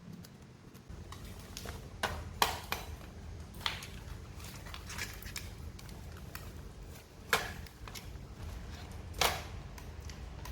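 Scattered sharp clicks and taps of laptop parts being handled and fitted back together during reassembly, over a low steady rumble.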